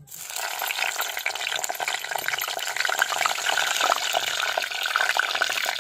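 Small whole brinjals sizzling and crackling in hot oil in a clay pot, starting suddenly as they go in, with a dense spatter of small pops.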